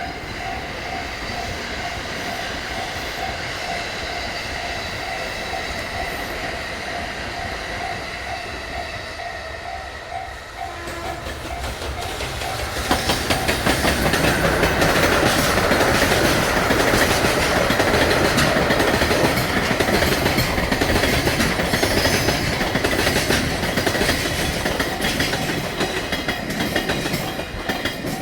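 Level crossing warning bell ringing in a steady repeating pattern. About thirteen seconds in, a JR Freight EF210 electric locomotive and its tank wagons and container flatcars pass close by, loud, with a rapid heavy clatter of wheels over the rail joints.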